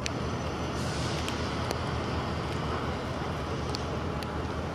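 Freight diesel locomotive approaching with a steady low engine rumble, with a few sharp ticks scattered through it.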